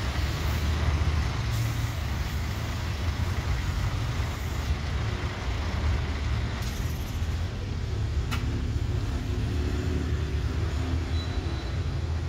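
Steady low rumble of road traffic, with a single sharp click about eight seconds in.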